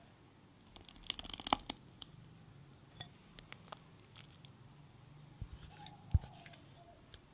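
Silicone spatula stirring flour into a wet banana batter in a glass bowl, loudest in a quick run of scrapes and clicks about a second in, then softer scattered clicks against the glass. A single dull knock sounds near the end.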